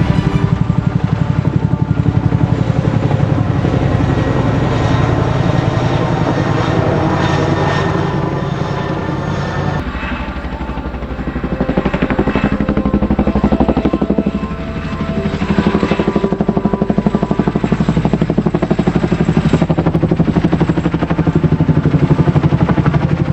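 Helicopter rotor sound effect: fast, steady blade chop over a running turbine. About ten seconds in it thins and dips briefly, then comes back to full strength.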